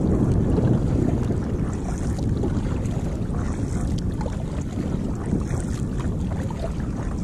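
Wind buffeting a GoPro action camera's microphone on a kayak, a steady low rumble.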